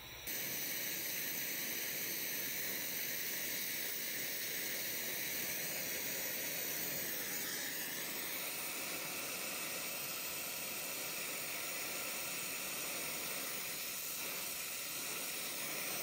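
Oxy-acetylene brazing torch flame burning with a steady hiss as it heats a crimped copper refrigerant line to braze it shut.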